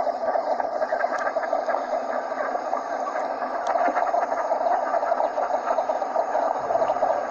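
Northern shoveler ducks calling in a dense flock chorus: many rapid, overlapping short calls run on without a break, played as a duck call for hunters.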